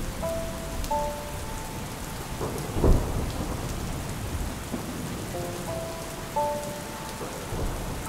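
Steady rain falling on wet stone paving, with a single loud low thump about three seconds in. A few sparse, held music notes sound faintly over the rain.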